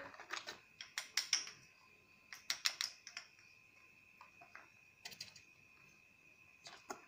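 Light taps and clicks in small clusters as small clay figures are set down into a cardboard box, over a faint steady high-pitched whine.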